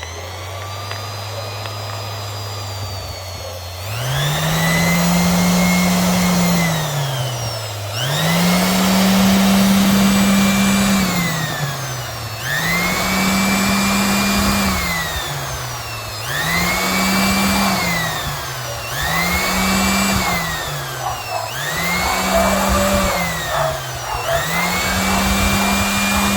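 Total 450 W random orbital sander's electric motor running at a low speed, then speeding up about four seconds in. It then winds down and back up again and again, about six times, the dips coming closer together toward the end.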